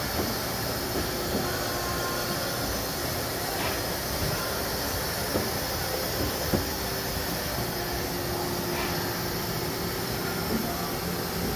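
Nakamura-Tome WTW-150 CNC lathe running under power: a steady mechanical hum with a couple of held tones. A few short clicks sound over it, the sharpest about six and a half seconds in.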